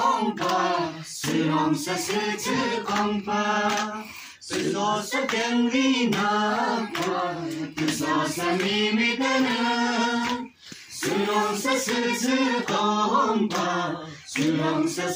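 Voices singing unaccompanied, mostly women's, in long held phrases that break off briefly about four seconds and ten and a half seconds in.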